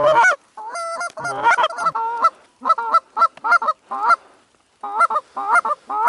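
Canada goose call blown in quick clucks and honks, about three short notes a second, with a brief pause a little past the middle, calling to incoming geese.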